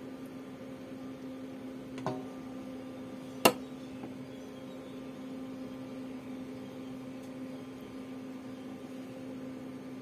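Steady electrical hum, with two sharp clicks about a second and a half apart, the second much louder.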